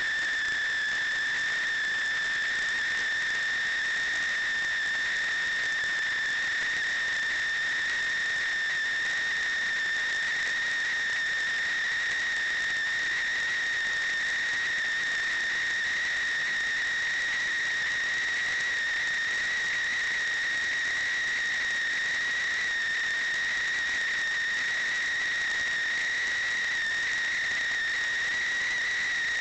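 A steady high-pitched whistle over a hiss, unbroken and drifting very slightly higher in pitch.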